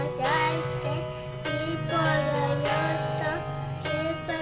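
A young boy singing a pop song in short phrases over instrumental backing music.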